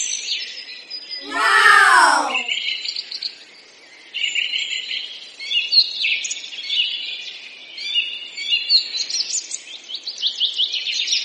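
Songbirds chirping and singing, many short, quick high chirps and trills. About a second and a half in, a louder, lower call bends up and down for about a second.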